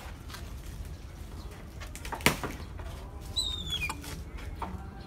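Handling noise from a hand drill in a drill stand while it is positioned, not running: one sharp knock a little over two seconds in. About a second later a bird gives a short falling chirp.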